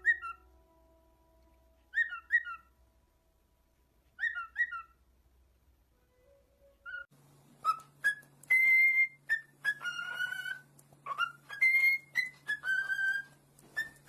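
Cockatiel whistling. First comes a short two-note chirp, repeated three times about two seconds apart. From about seven seconds in, it gives a continuous run of whistled notes, rising and falling like a learned tune.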